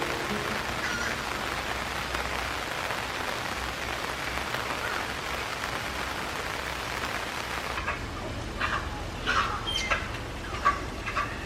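Steady hiss of rain. From about eight seconds in, a run of short, high-pitched squeaks comes from excited Malayan tapirs.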